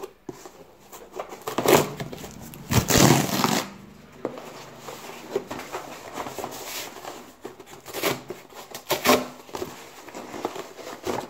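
A small cardboard box being opened by hand: its flaps scraping and rustling, with a few louder rasps, the longest lasting under a second about three seconds in.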